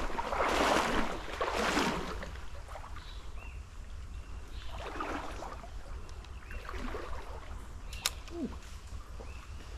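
Outdoor ambience by a small flowing canal: loud rustling swishes for the first two seconds, then a quieter steady water background with a few short bird chirps and a sharp click about eight seconds in.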